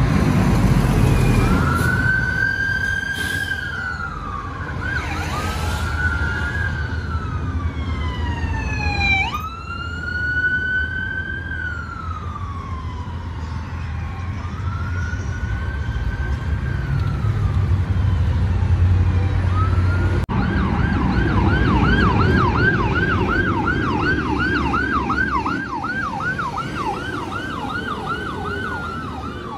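Fire truck siren wailing in slow rising and falling sweeps, then switching to a fast yelp about two-thirds of the way through, over a low rumble of engines and traffic.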